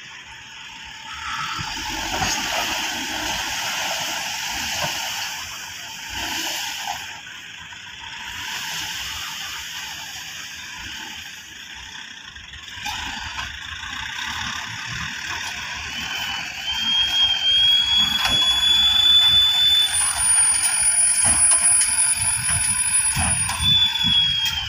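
Dump trucks working on a dirt site, with a rushing noise as they tip soil from their raised beds. About two-thirds in, the sound gets louder and a high steady metallic squeal sets in. It breaks off and comes back briefly near the end.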